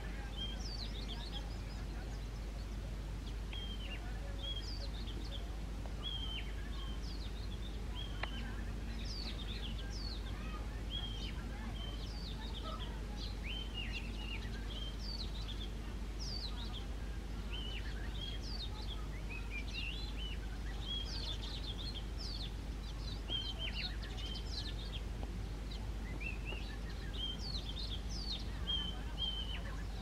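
Male Oriental magpie-robin singing: a continuous run of short, clear whistled notes that sweep up and down in pitch, over a steady low background rumble.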